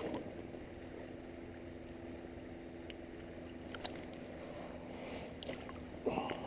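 Steady rush of flowing creek water, with a few faint clicks as pliers work the hook out of a landed steelhead's mouth, and a louder handling rustle near the end.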